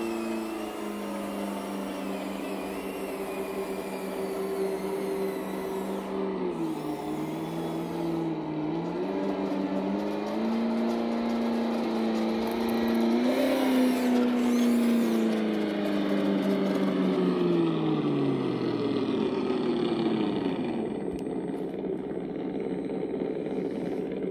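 Simulated tractor diesel engine sound played through the speaker of a Sense Innovations ESS One sound unit on an RC model John Deere 9560RT, its pitch dipping and rising with the throttle. About twenty seconds in the engine note slides down and fades, leaving a fainter steady noise.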